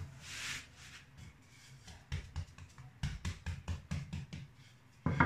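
A rolling pin pressing and tapping down on a folded block of laminated dough on a granite counter: a quick run of soft knocks at about four a second, after a brief rustle of hands on the dough at the start.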